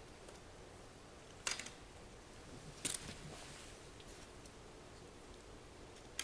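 Small hard plastic clicks and taps as a replacement laptop fan is handled and set into the opened laptop's case: a sharp click about a second and a half in, a short cluster of clicks near three seconds, and another at the very end.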